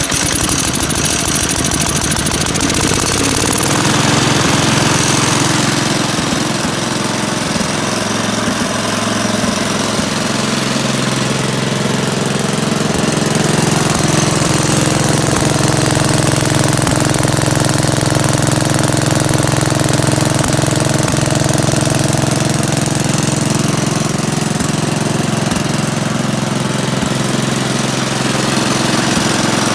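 Ingersoll-Rand T30 two-stage air compressor, driven by its 10-horsepower Kohler engine, running steadily just after starting.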